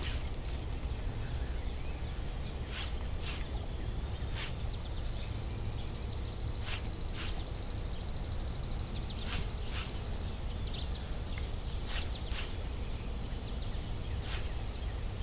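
Birds calling outdoors: a short high chirp repeated two or three times a second, joined by a buzzy trill from about five to ten seconds in. Underneath is a steady low rumble with a few scattered clicks.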